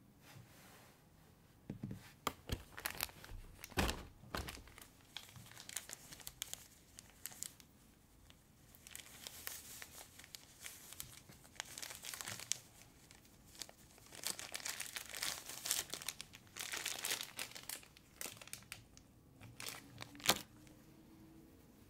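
Thin clear plastic wrapping crinkling and crackling as it is handled and pulled off a toy's packaging, in uneven bursts with a long dense stretch in the middle. A few sharp clicks come a few seconds in, and a single loud tap near the end.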